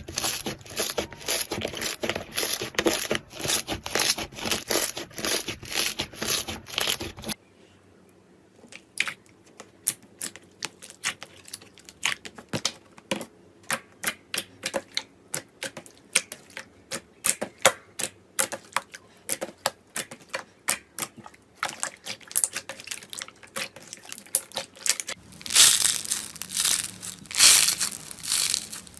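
Slime being squeezed and pressed by hand, making crackling and popping sounds. A dense, loud run of crackles comes first. About seven seconds in it changes to quieter, scattered sticky pops and clicks, and near the end to louder crunching.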